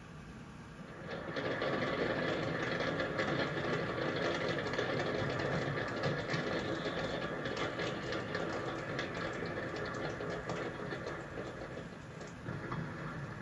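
Fireworks display: a dense run of crackling and popping bursts over a steady rumble, starting about a second in, heard as played back through a TV's speaker.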